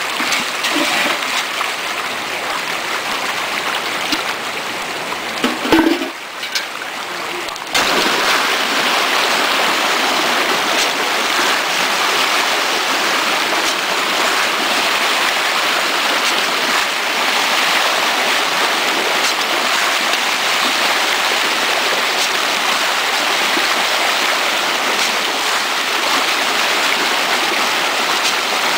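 Rainbow trout splashing and thrashing at the water's surface in a feeding frenzy, a continuous rushing splash. It drops away briefly around six seconds, then comes back louder and steady from about eight seconds.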